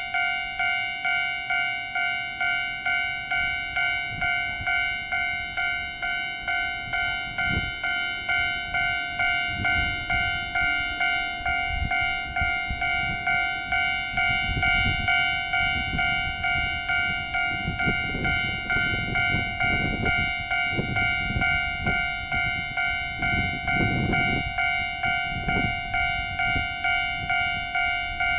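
Japanese level-crossing warning bell ringing steadily, a repeated electronic clang about two strikes a second. A low rumble swells in and out in the second half.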